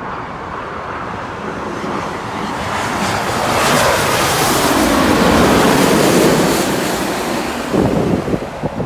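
Boeing 787-9 airliner's twin jet engines on final approach passing low overhead: the roar builds, peaks about four to six seconds in with a falling sweep in pitch as it goes by, then eases off. Wind buffets the microphone near the end.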